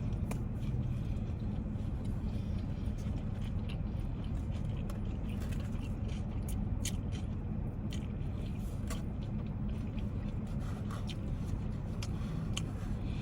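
Close-up chewing of a sauce-soaked grinder sandwich: scattered short wet clicks and smacks of mouth and bites. Under it runs the steady low hum of a car's interior.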